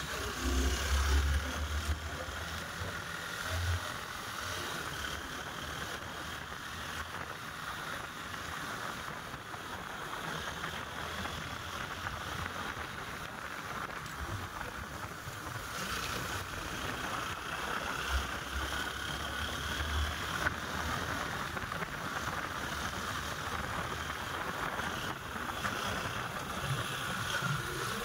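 Steady rush of wind and road noise from a moving motorcycle, with low rumbles of wind buffeting the microphone in the first few seconds and again later.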